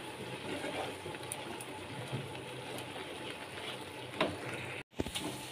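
Chhena, sugar and milk mixture for kalakand bubbling and sizzling steadily in a nonstick kadai over a gas flame as it cooks down and dries out, with a single light knock about four seconds in.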